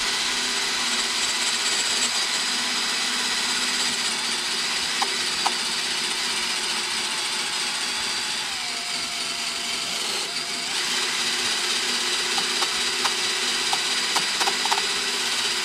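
Cordless drill running steadily with a cleaning attachment, scrubbing rust off the flywheel of a Kohler lawn mower engine, with a few light ticks of the tool against the metal.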